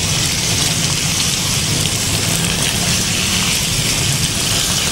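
Minced meat sizzling steadily in a kadai over a high gas flame as it is stirred with a spatula: the water the mince has released is being fried off.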